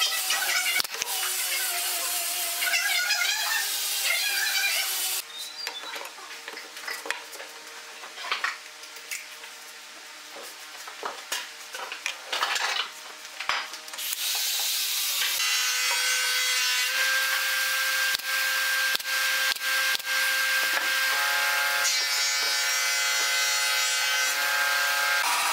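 Hand work on a pine stool frame: rubbing and rasping on the wood, then a quieter stretch of light clicks and knocks as a steel pipe clamp is fitted, then a steady rasping noise with a few held tones over it from about halfway on.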